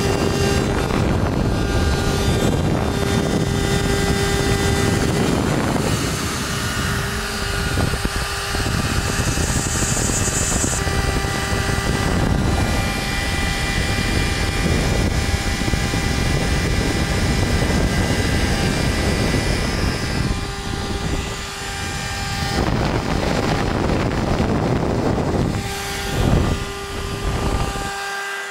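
CNC router spindle running at speed while its end mill cuts into PE500 polyethylene. A steady whine, with the rough noise of the cut swelling and easing as the tool moves through the plastic.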